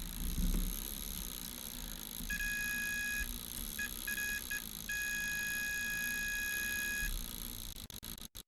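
Multimeter continuity tester beeping as the probes touch: a tone of about a second, a few short broken beeps, then a steady tone of about two seconds, the sign of a closed circuit between the probes.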